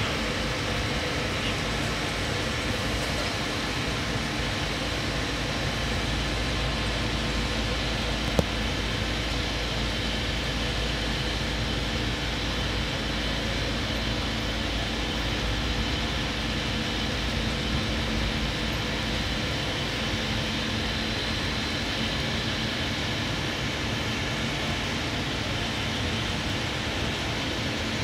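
Steady running noise of a Liebherr 500-ton mobile crane's engine and machinery as it hoists a load, even and unchanging, with one sharp click about eight seconds in.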